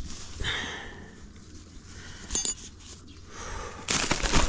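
Thin metal tent stakes being pulled out of hard, dry ground beside a nylon tent, with scraping and fabric rustling. There is a short metallic clink about halfway through and a louder scrape near the end.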